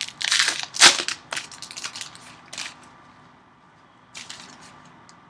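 Plastic wrapper of a trading card pack being torn open and crinkled, a quick run of sharp crackles in the first second and a half, then a few lighter rustles.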